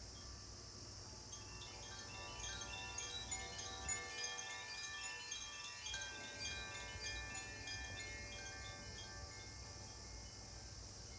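Tuned metal chimes played in a gentle, continuous run: many bell-like notes struck one after another, ringing on and overlapping, the run starting about a second in, thickest in the middle and thinning toward the end.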